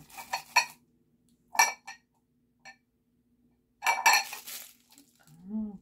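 Small bamboo spoons and stoneware dip bowls clinking and knocking together as they are handled. There are a few sharp clinks in the first two seconds and a denser clatter about four seconds in.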